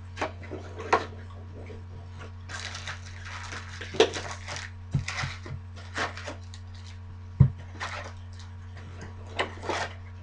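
A cardboard trading-card box and its packs being handled and opened: irregular taps, knocks and short rustles of cardboard and foil wrappers, with two sharper knocks about four and seven and a half seconds in.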